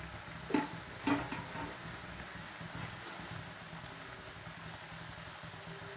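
Two soft knocks about half a second apart in the first second or so, as sliced onions are put into a frying pan. A faint steady low hum follows.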